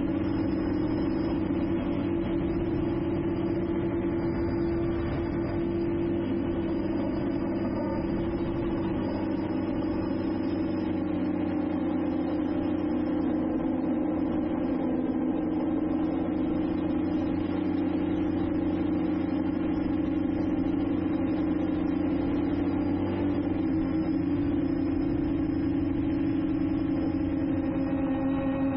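Drone motors and propellers running steadily in flight, a constant pitched hum that dips slightly lower near the end.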